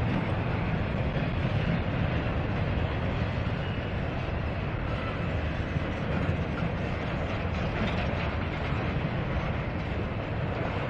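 Double-stack intermodal well cars of a freight train rolling past, their wheels on the rails making a steady rumble.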